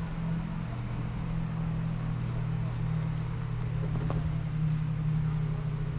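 Steady low mechanical hum, like a motor or engine running at a constant speed.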